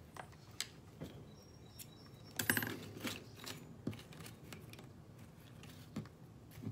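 Light clicks, taps and rustles of hands handling a knotted macramé cord necklace and its small bead pendants, with a short cluster of louder clicks about two and a half seconds in.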